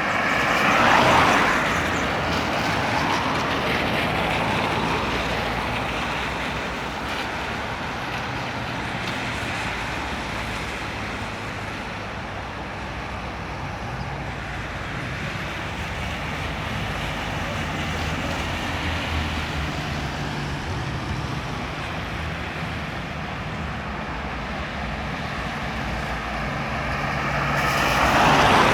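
Road traffic on a busy highway: a steady hum of engines and tyres, with a vehicle passing close and loud about a second in and another near the end.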